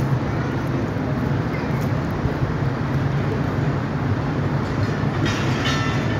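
Pakistan Railways passenger coaches rolling slowly past, a steady rumble of wheels on the track. A brief high-pitched squeal comes about five seconds in.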